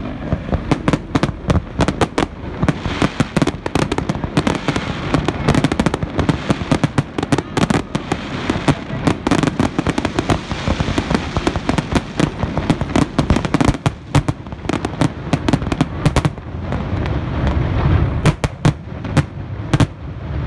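Fireworks display: a rapid, dense string of bangs and crackles from shells and rising comets bursting over the water, several a second, thinning to scattered bangs near the end.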